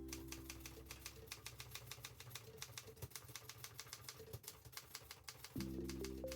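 Olympia SG3 standard manual typewriter being typed on: a quick, even run of keystrokes, about six or seven a second.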